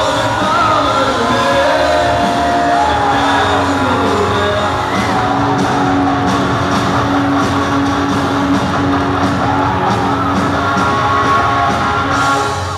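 Live rock band playing: electric guitars, bass guitar and drums.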